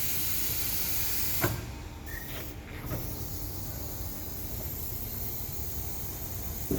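Compressed air hissing from a pneumatic tire changing machine as a control is held, cutting off with a click about a second and a half in; a few lighter clicks follow, and a louder knock comes at the very end.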